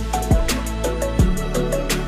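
Background music with a steady electronic beat: deep drum hits that drop in pitch, with quick high ticks over sustained bass and melody notes.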